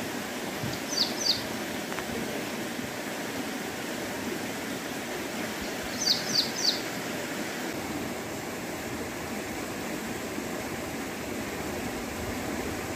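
A bird calling with short, quick, downward-sliding chirps: two about a second in, then three more around six seconds in, over a steady rushing background noise.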